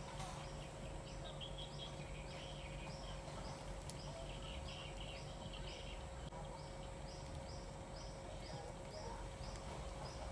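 Faint repeated high chirping, about three chirps a second, over a steady low hum.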